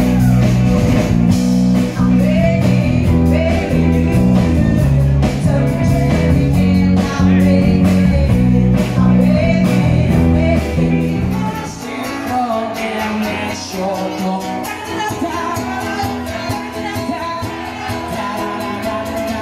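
Background song with singing over guitar and bass. About twelve seconds in the heavy bass drops out and the music gets quieter.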